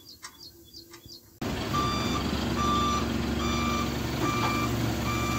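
An ACE 20-ton crane's diesel engine running steadily, heard from inside the cab, with its reversing alarm beeping about once a second. The sound cuts in suddenly about a second and a half in, after a short quiet stretch.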